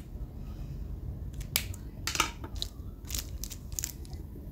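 Several short, sharp clicks and light handling noises, spaced unevenly across a few seconds, from a Zippo lighter being handled.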